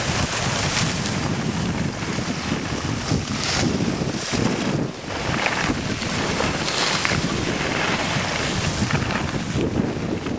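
Wind buffeting the microphone of a camera carried by a moving skier, with the hiss and scrape of skis sliding over packed snow. The noise swells and eases irregularly.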